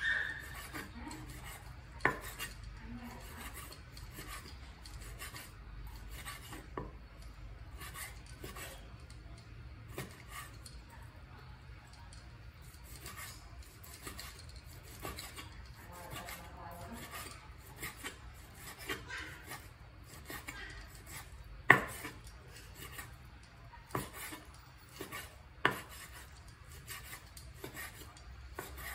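A large kitchen knife slicing raw pork belly on a wooden cutting board: irregular soft slicing strokes and light taps of the blade on the wood, with a few sharper knocks, the loudest about three quarters of the way through.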